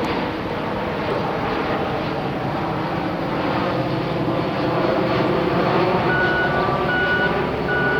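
Aircraft passing overhead, a steady rumble that swells a little past the middle, with a vehicle's reversing alarm beeping three times near the end.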